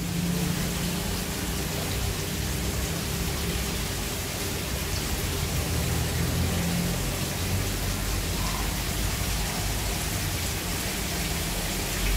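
A steady rain-like hiss with a low hum beneath it, holding even throughout.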